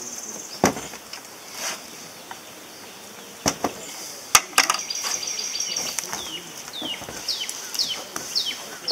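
A few sharp knocks on a corrugated metal roof as a person shifts his feet, over outdoor birdsong and a high insect trill. In the last few seconds a bird gives a run of quick downward-slurred whistles, about two a second.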